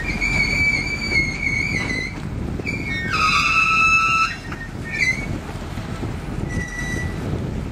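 Freight train of tank cars rolling slowly through a yard, with a low rumble of wheels on rail and several high-pitched steel wheel-flange squeals. The loudest squeal, with several tones together, comes about three seconds in and lasts just over a second; shorter ones come near the start and end.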